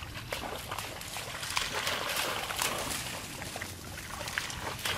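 Pond water splashing and sloshing as a monkey swims through it, a run of irregular small splashes that are densest in the middle.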